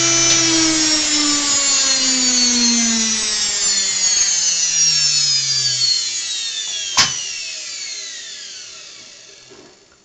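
Washing machine universal motor (armature and field windings) coasting down after its power is switched off: its whine falls steadily in pitch and fades away over about nine seconds. A single sharp click sounds about seven seconds in.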